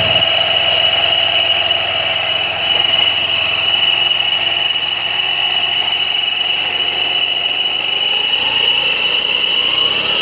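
Kawasaki Curve motorcycle engine running steadily, with a loud, steady high-pitched whine over it: the noise problem being troubleshot. A lower tone rises briefly and falls back near the end.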